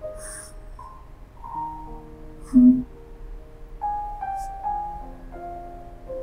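Slow, soft piano music, a sad melody of held notes. About two and a half seconds in there is a short, louder low sound.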